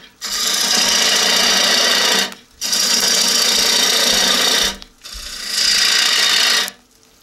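Bowl gouge hollowing the inside of a spinning wooden bowl on an electric lathe: a steady hiss of the cut in three passes, each about two seconds long with a brief break between them, stopping near the end.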